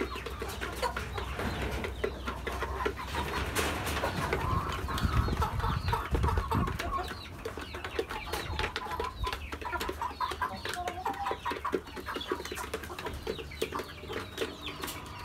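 Flock of chickens clucking as they feed, with many small quick clicks throughout. A low rumble comes in from about four to seven seconds in.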